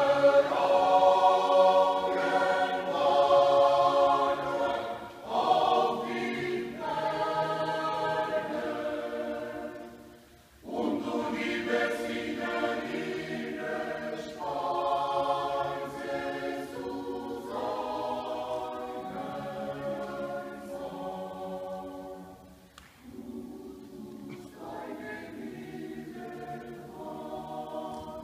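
Mixed choir of men's and women's voices singing a cappella in long phrases. About ten seconds in the singing stops briefly, then resumes more softly.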